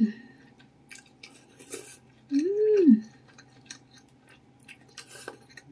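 A person slurping and chewing noodles with meatballs, with small wet clicks and short slurps, and a loud hummed "mmm" of enjoyment that rises then falls in pitch about two and a half seconds in.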